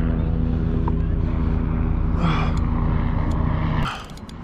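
A boat engine running steadily at a constant pitch, cutting off abruptly near the end, followed by a few sharp clicks.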